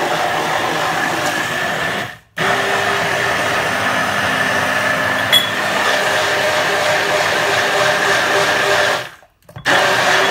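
Hand-held stick blender running in a plastic beaker, puréeing pesto, with a steady motor whine. It cuts out for a moment about two seconds in, stops again near the end, and starts up again.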